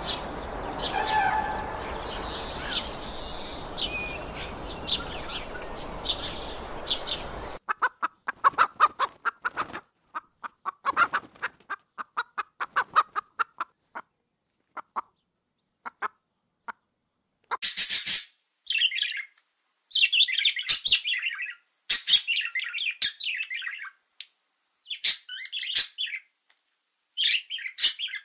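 Zoo birds in turn: first an outdoor background with small birds chirping, then a hen clucking in quick short notes, then loud harsh high squawks in bursts.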